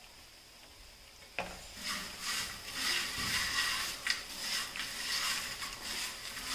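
Crisp fried raw-banana chips rustling and crackling as they are tossed by hand in a pan to coat them with masala. It starts with a single sharp click about a second and a half in.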